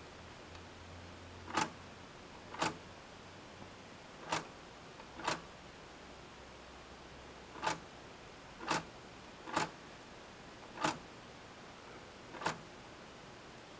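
Selector knob of a 1946 Packard 'Butler' wallbox being turned one selection at a time, its title drum clicking into each detent: nine sharp clicks roughly a second apart over a faint low hum.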